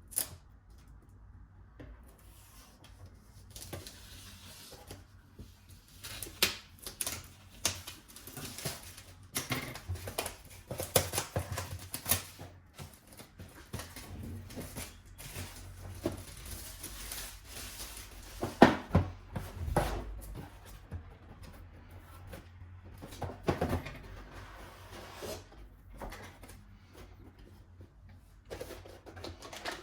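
Hands unboxing a Wi-Fi router: irregular clicks, taps and knocks with rustling of the packaging, the loudest knock a little past the middle.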